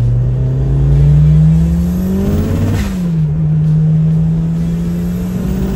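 Turbocharged 4G63 four-cylinder of a 1998 Eagle Talon TSI AWD accelerating hard. The engine note climbs, drops sharply with a short burst of hiss at a gear shift about three seconds in, then climbs again more slowly in the next gear.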